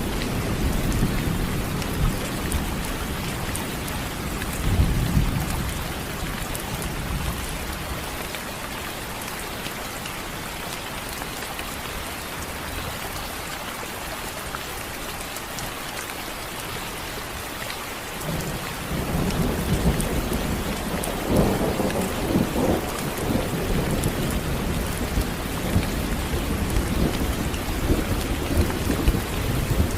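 Steady rain hissing, with rolling thunder. A rumble dies away about six seconds in, and a new peal builds about nineteen seconds in and keeps rumbling with several louder cracks.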